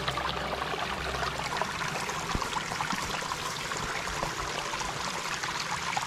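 Small forest creek babbling and trickling as it spills over a little drop.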